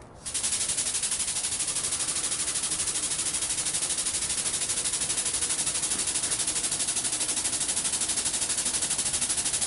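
Air-over-hydraulic truck jack pumping as it lifts a big truck: a loud, steady hissing chatter that pulses evenly at more than ten beats a second.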